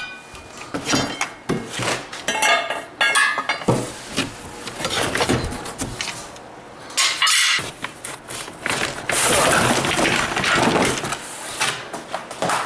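Black metal frame tubes of a riding-mower bagger kit clanking and knocking against each other as they are lifted out of a cardboard box, with cardboard scraping and rustling, loudest in a longer stretch about two-thirds of the way through.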